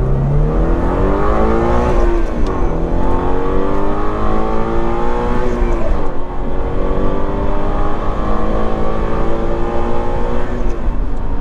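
2022 Toyota GR86's 2.4-litre boxer four-cylinder engine accelerating hard, heard inside the cabin with the active sound controller unplugged, so this is the real engine and exhaust note with no synthetic sound added. The engine note climbs, drops at upshifts about two and six seconds in, climbs again, and eases off near the end.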